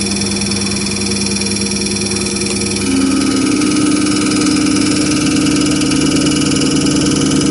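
Common-rail diesel injector test bench running: its drive motor and high-pressure fuel pump make a steady mechanical hum. About three seconds in, a louder and higher hum sets in.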